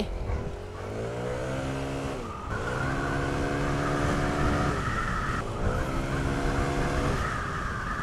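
Yamaha Aerox scooter's single-cylinder engine pulling away: its pitch climbs for about two seconds and holds, eases off briefly near the middle, then climbs and holds again, over steady road and wind noise.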